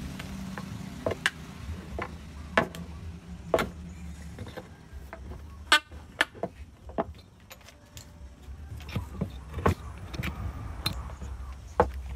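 Hammer striking a metal piece and nails on an old wooden bed rail: about a dozen irregular sharp knocks, with a ringing metal strike near the middle. A steady low hum runs underneath.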